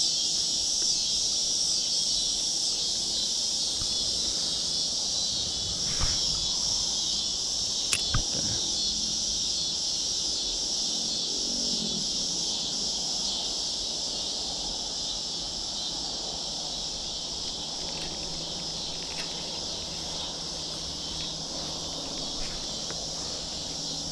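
Steady chorus of insects, a dense high-pitched buzz that goes on without a break, with a couple of brief knocks about six and eight seconds in.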